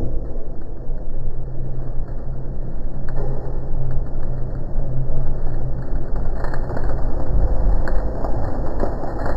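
Probat coffee roaster running with a steady low hum while the cooling tray's stirring arms turn. From about six seconds in, freshly roasted coffee beans start pouring from the drum into the cooling tray with a growing patter and rattle.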